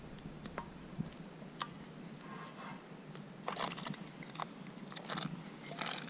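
Wood campfire crackling and popping: scattered sharp snaps, with a few short bursts of crackle about halfway through and near the end.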